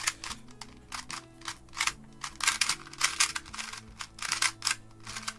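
Irregular clicking and typing on a computer keyboard, with quiet background music underneath.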